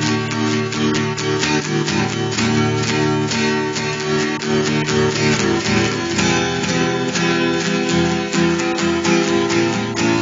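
Music: a guitar strumming chords in a steady rhythm.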